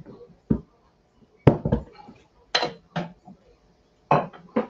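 Kitchen clatter: a plastic storage canister and utensils being handled and knocked on the benchtop, about seven separate knocks and clicks.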